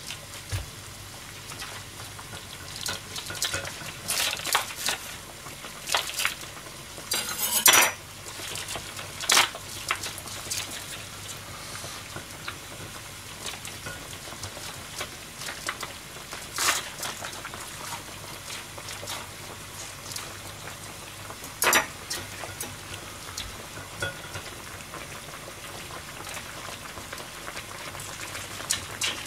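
Cabbage leaves boiling in a pan of water, with a steady bubbling hiss and scattered sharp clinks and scrapes of a utensil against the pan as the leaves are turned; the loudest comes about seven seconds in.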